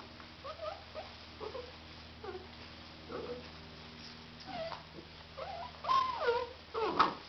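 Labrador retriever puppies whining and yipping in short, high, sliding calls, a few every couple of seconds, with the loudest near the end, over a steady low hum.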